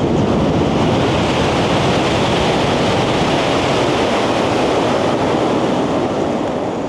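A train passing close along the station platform at speed: a loud, steady rush of air and wheel noise that eases slightly near the end.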